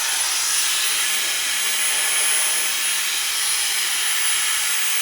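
Dyson hair dryer blowing steadily: an even rush of air with a thin high whine over it.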